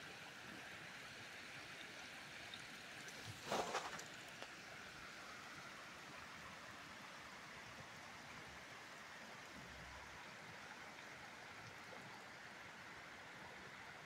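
Steady faint rush of shallow water running over stone terraces, with one brief louder noise about three and a half seconds in.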